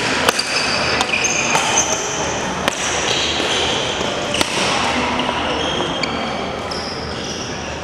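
Badminton rally: sharp racket hits on the shuttlecock and sneakers squeaking on the hardwood court, over a steady din of hall noise and distant voices. The hits stop about three seconds in, with a few scattered knocks after.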